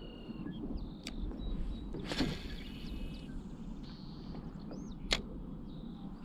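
Low wind and water rumble with a few short high bird-like chirps. There are two sharp clicks, about one second and five seconds in, and a brief rushing whoosh about two seconds in.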